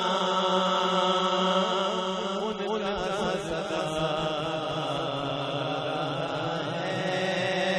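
A man singing a naat (Urdu devotional poem) without instruments through a microphone, drawing out long wavering notes over a steady low drone.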